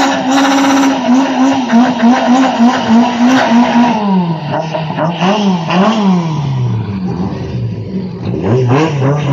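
Mk1 Volkswagen Golf drag car's engine held at high revs during a burnout, its pitch wavering, for about four seconds. The revs then fall away with a couple of quick blips, sit low, and rise again briefly near the end.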